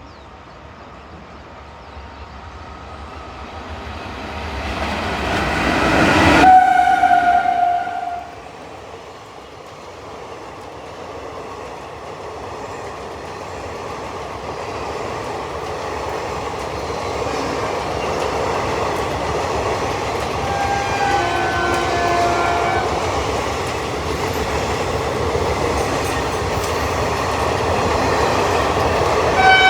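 An Indian Railways express train rushes past at speed, its horn sounding as it goes by about a third of the way in, then cutting off suddenly. Another train's noise then builds steadily as it approaches, with a few short horn notes midway and a loud, steady horn blast near the end.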